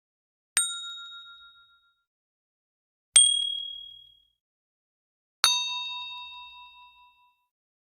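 Three separate bell-like ding sound effects, each struck sharply and ringing out for a second or two, each at a different pitch, with silence between them. The last one is the richest in overtones and rings longest.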